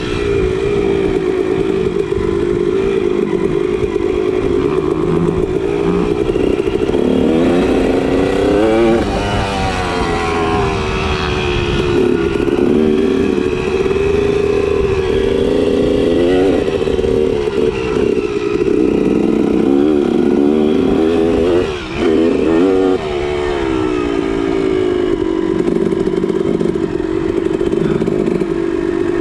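Dirt bike engine running under throttle on a dirt trail, its pitch rising and falling with throttle and gear changes. About three-quarters of the way through, the sound drops briefly as the throttle is shut, then picks up again.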